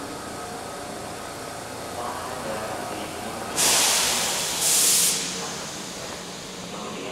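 Two loud hisses of compressed air let out by a stationary Seibu 3000-series electric train, the first about a second long and the second a little shorter, over the steady hum of the train at the platform.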